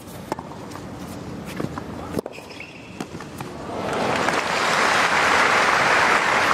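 A few sharp pocks of rackets striking a tennis ball during a rally, then crowd applause swelling up about three and a half seconds in as the point ends and holding loud.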